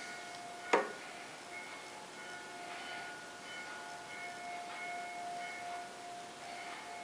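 A mallet tapping once on a steel bar held in a lathe's four-jaw chuck about a second in, a sharp knock, followed by faint ringing tones that come and go. This is the tapping used to centre work in a four-jaw chuck against a dial indicator.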